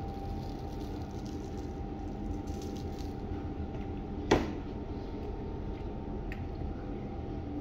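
Someone eating fish and chips with crunchy batter: faint chewing and crackling, with one sharp click about four seconds in and a smaller one near the end, over a steady background hum.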